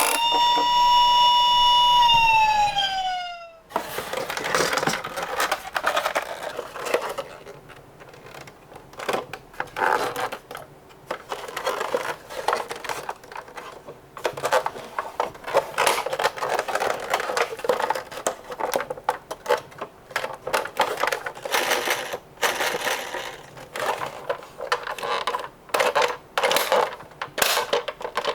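A siren holds a steady tone, then winds down in pitch and cuts off about three and a half seconds in. Then die-cast Tomica toy cars clatter down a slope in a rapid, irregular run of clicks and rattles.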